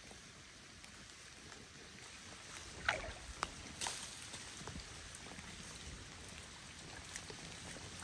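Quiet ambience on a still lake: faint water lapping at a small boat, with a few light ticks and drips from about three seconds in.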